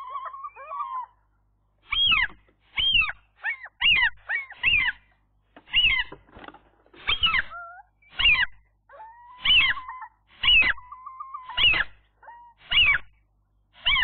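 A pair of common gulls giving greeting calls at the nest: a string of about a dozen short calls, each falling in pitch, roughly one a second, with a held lower note between calls near the middle.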